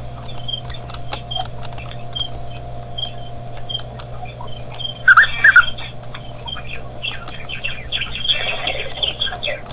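Wild birds calling: a short high chirp repeating about every half second, with two louder calls close together about five seconds in, over a steady low hum.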